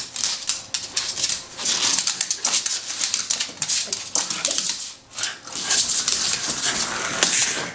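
Small terrier vocalising and whimpering as it plays over a toy. Many quick clicks and scuffles, fitting its claws scrabbling on a laminate floor, with a brief lull about five seconds in.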